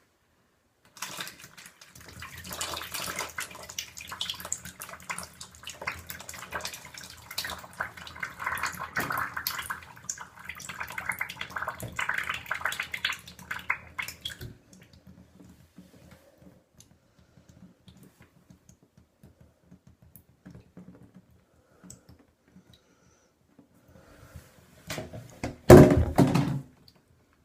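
Thick homemade flour-and-water slime pouring and splattering in a bathtub for about thirteen seconds, then dying away to faint drips and shuffles, with a short loud burst near the end.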